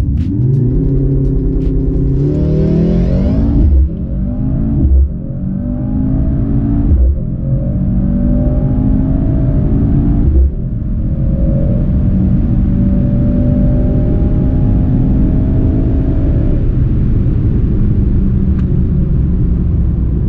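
Mercedes-AMG C 63 S E Performance's turbocharged four-cylinder hybrid powertrain accelerating flat out from a launch-control start, heard from inside the cabin. The engine note climbs and drops back at four quick upshifts in the first ten seconds or so, each with a brief loud spike. It then makes a long, slowly rising pull in a higher gear until the engine note fades near the end, leaving a steady low rumble.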